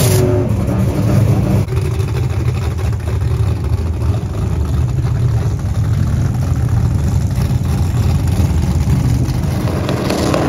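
Drag-race car engine running loudly and roughly at the starting line, a dense steady rumble with no marked rise or fall in pitch.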